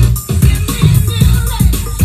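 Dance music with a heavy bass beat, about two beats a second, played through a Turbosound iP1000 column PA system with an Electro-Voice EKX-15SP subwoofer.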